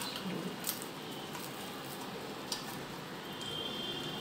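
Quiet room hiss with two short, sharp clicks, from crisp fried plantain-flower vadas being handled on a steel plate and one being bitten into.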